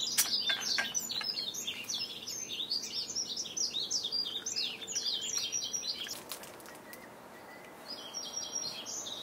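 Small birds chirping in a dense run of short, rapid calls for about six seconds, then again briefly near the end. A few knocks come near the start.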